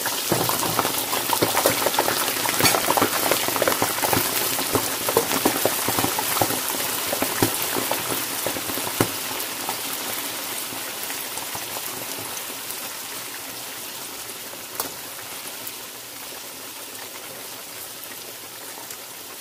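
Eggplant slices deep-frying in hot oil in a kadhai, sizzling and crackling. The popping is dense in the first half, just after the moist slices go in, then thins out while the sizzle grows steadily quieter.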